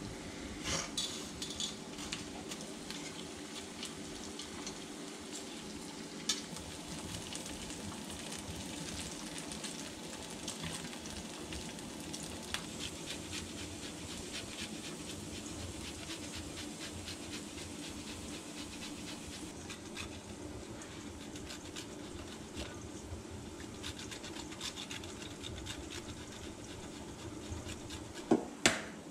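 Diced pancetta sizzling gently in a non-stick skillet as its fat renders, under quick repeated scraping of a block of hard cheese on a rasp grater into a stainless steel bowl. Two sharp knocks near the end.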